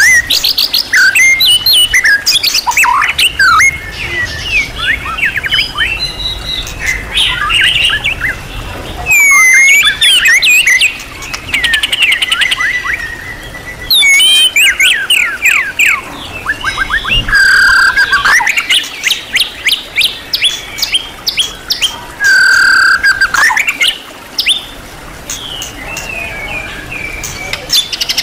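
White-rumped shama (murai batu) singing a long, varied song: phrases of fast whistles, trills and rising and falling glides with short pauses between them, with mimicked calls of other birds worked in, including a couple of flat buzzy notes.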